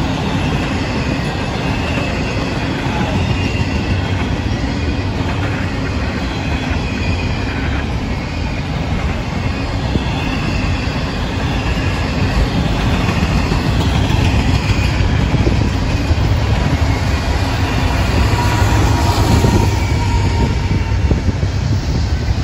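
CSX double-stack intermodal train rolling past: a steady rumble and clatter of loaded container well cars on the rails, with thin high wheel squeals now and then.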